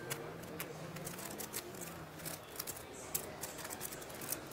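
Poker chips clicking as players handle their stacks at the table: soft, irregular clicks several times a second over a low room hum.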